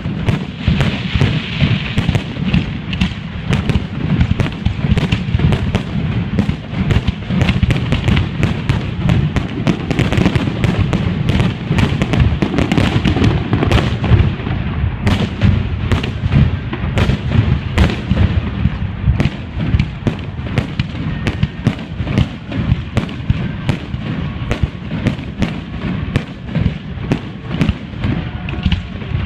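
A fireworks display going off in a dense barrage: many overlapping bangs a second over a continuous low rumble.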